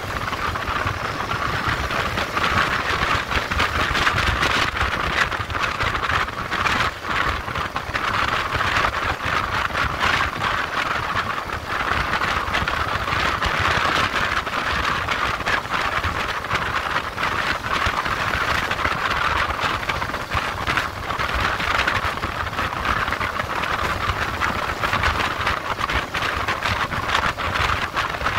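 Motorcycle being ridden on the road: steady wind rush over the microphone with engine and road rumble underneath, broken by frequent irregular wind buffets.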